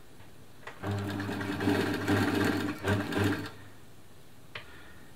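Elna Lotus SP sewing machine running, stitching through fabric with a steady motor hum for about three seconds. It starts about a second in, then stops, with a small click a second later.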